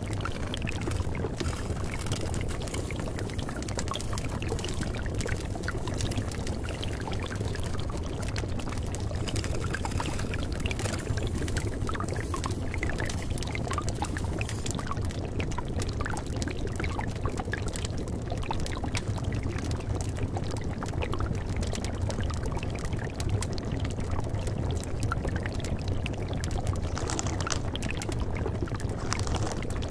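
Steady running-water sound laid as the background of a subliminal audio track, with a low steady hum underneath.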